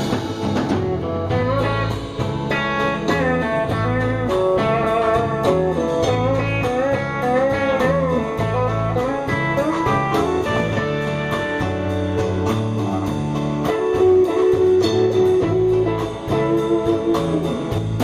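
Live country band playing an instrumental break: a lead guitar solo with bent, wavering notes over bass and a steady drum beat.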